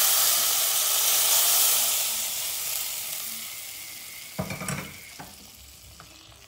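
Hot oil with garlic and dried mint poured into a pot of tarhana soup, sizzling loudly at first and fading away over about four seconds. A few short metal knocks follow near the end as the pan is set down and a ladle stirs in the pot.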